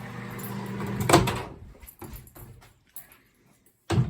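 Microwave oven running with a steady hum that cuts off about a second in with a loud clunk as its door is opened. A few light clicks follow, then a second knock near the end.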